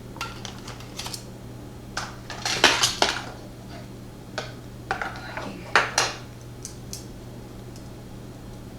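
Small metal parts clicking and clinking as a pin-tumbler lock is taken apart by hand, a run of sharp taps that is thickest about two and a half to three seconds in and again around six seconds, then stops.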